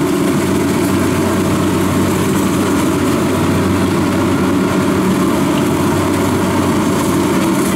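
Kubota DC-70 combine harvester's diesel engine running steadily while the machine harvests rice, a constant even drone with no change in speed.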